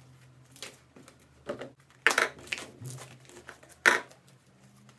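Homemade slime being squeezed, kneaded and pulled apart by hand: several short sticky squelches, the loudest about two seconds in and just before four seconds.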